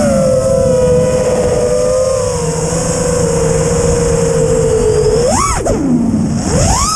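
FPV quadcopter motors whining steadily at a held throttle, then two quick throttle punches near the end that send the pitch sharply up and back down.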